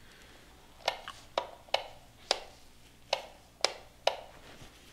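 Wall rocker light switch being clicked on and off repeatedly: about seven sharp clicks at uneven intervals.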